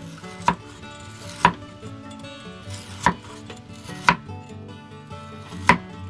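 Kitchen knife slicing raw fresh sausage on a wooden cutting board. Each cut ends in a sharp knock of the blade on the wood, five cuts at an uneven pace, over soft background music.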